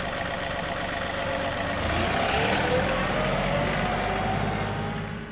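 Engine running steadily, with a short hiss about two seconds in and then a whine that slowly rises in pitch.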